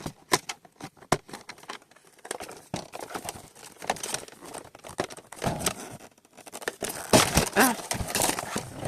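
Plastic and cardboard toy packaging crinkling and rustling, with small clicks and taps as plastic playset pieces are handled and unpacked.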